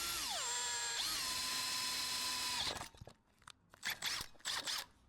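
Power drill with a pilot bit drilling through a centre-punched mark in metal: the motor's whine dips in pitch as the bit bites, then runs steady and stops about two and a half seconds in. A few short knocks follow.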